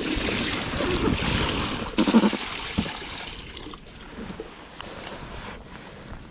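Water sloshing and splashing, louder in the first few seconds, with a few dull knocks, then settling to a quieter wash.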